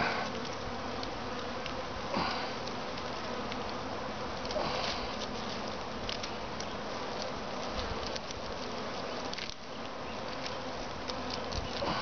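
A swarm of honey bees buzzing steadily, the hum of many bees flying around the clustered swarm. A few brief rustles and snips come from small branches being clipped away beside the cluster.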